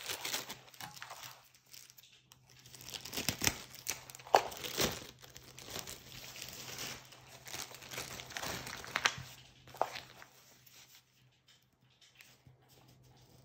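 Clear plastic wrapping crinkling and crackling as it is handled and pulled off a diamond painting kit. The crackles are sharpest about three to five seconds in and again around nine to ten seconds, then die down.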